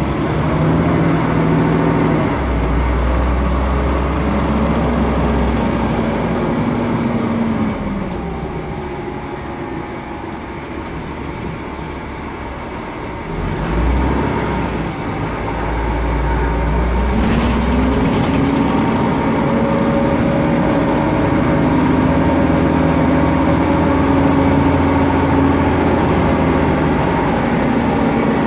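Mercedes-Benz Conecto NGT city bus heard from inside the cabin: its OM 936G turbocharged CNG engine and cooling fan running loud. The engine note climbs as the bus pulls away, falls off into a quieter stretch, then climbs again about halfway through and holds steady.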